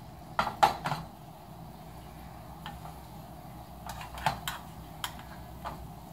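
A slotted metal spatula clicking and tapping against a nonstick frying pan: three sharp clicks in the first second, then a few lighter taps about four to six seconds in.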